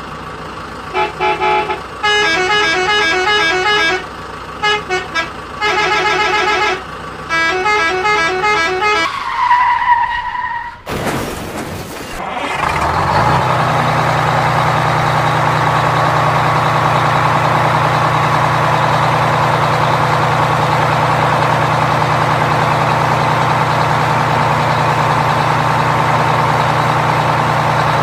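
Vehicle sound effects: a horn honking in quick runs of short toots for about nine seconds, then a brief falling tone and a short burst of noise. After that, a truck engine runs steadily.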